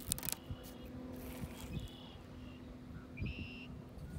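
A few short, high bird chirps about halfway through and again near the end, over quiet outdoor background, with a couple of sharp clicks right at the start.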